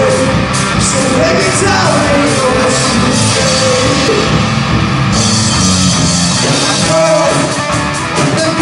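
Live rock band playing through a PA: electric guitar, drums and keyboard, with sung vocals coming and going.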